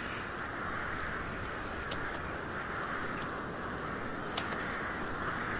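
Steady outdoor field ambience: an even hiss, with a few faint sharp ticks.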